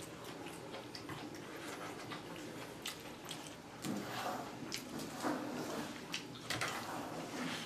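A person chewing a mouthful of bread and soya keema, eaten by hand: soft mouth sounds with scattered small clicks, a little louder about four seconds in and again near the end.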